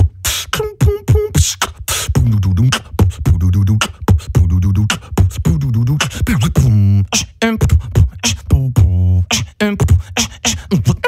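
A person beatboxing: quick mouth-made drum hits, kicks, snares and hi-hat clicks, with deep buzzing bass tones that bend in pitch joining in from about two seconds in.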